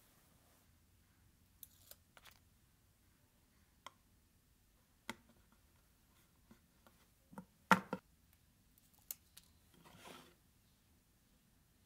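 Scattered clicks and knocks of small parts being handled on a wooden workbench: a thin brass sheet and small wooden pieces picked up and set down, with a short rustle. The loudest is a sharp double knock about three quarters of the way through.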